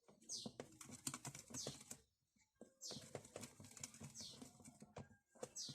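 Faint clicks and scrapes of kitchen utensils, with a short swishing scrape repeating about every second and a quarter.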